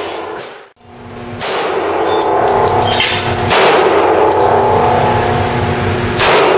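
Smith & Wesson M&P 9mm pistol firing frangible rounds at steel targets: three shots about two seconds apart, each a sharp crack followed by echo. Thin ringing tones follow some of the shots, as the steel plates ring from the hits. The sound nearly drops out for a moment near the start.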